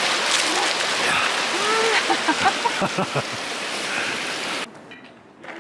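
Steady rush of running water, with a few faint voices mixed in; it cuts off suddenly about four and a half seconds in.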